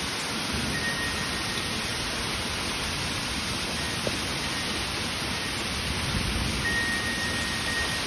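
Heavy rain falling steadily, a dense even hiss. A faint high ringing tone comes briefly about a second in and again near the end.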